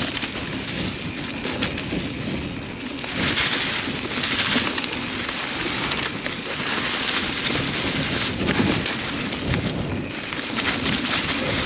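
Mountain bike being ridden over a rough dirt and rock trail: tyres rolling and crunching, with many small rattles and clicks from the bike. A rushing hiss swells and fades every few seconds.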